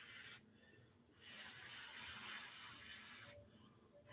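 A person blowing on a hot slice of pizza to cool it: faint, breathy blows, one ending just after the start, a longer one from about one second to three seconds in, and another starting near the end.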